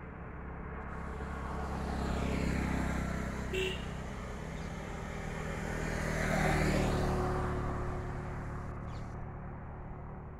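Two road vehicles passing by one after the other, each swelling up and fading away, over a steady low traffic hum. A brief high chirp about three and a half seconds in.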